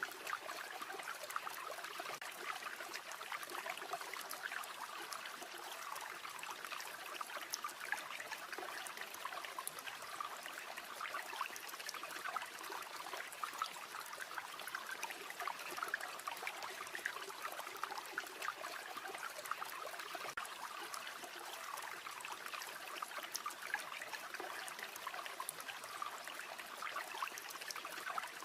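River water flowing and trickling steadily, with many small quick ticks scattered through it.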